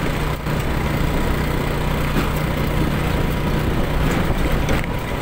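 Small motorcycle engine running steadily while riding, with a rushing haze of wind and road noise over a low, even hum.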